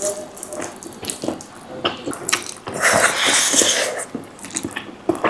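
Water running for about a second and a half near the middle, amid scattered small clicks and knocks.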